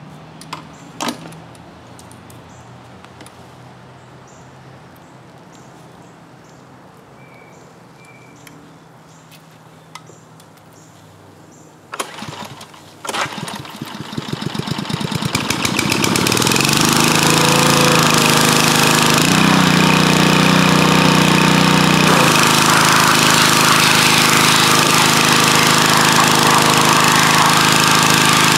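Pressure washer's Kohler 173 gasoline engine pull-started about halfway through: two sharp pulls, then it catches and settles into a steady run driving its new 3,000 psi pump. High-pressure water spray hisses from the wand over the engine noise.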